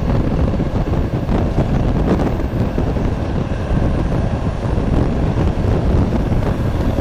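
Passenger train running through a tunnel, heard from the carriage window: a loud, steady rumble with wind buffeting the microphone.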